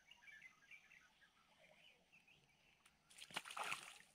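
Faint bird chirping over quiet outdoor background, with a short burst of rustling noise a little past three seconds in.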